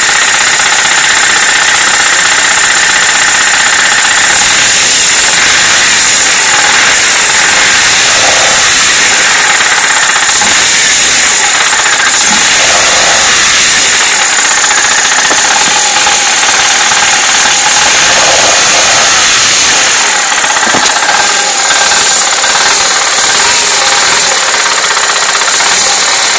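A car engine running steadily with a rapid knocking from inside it: the knock in the engine that is being recorded.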